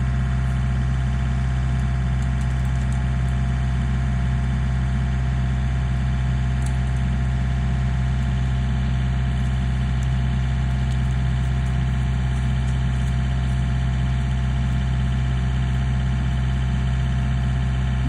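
Tractor-loader-backhoe engine idling steadily at an even pitch, with nobody at the controls.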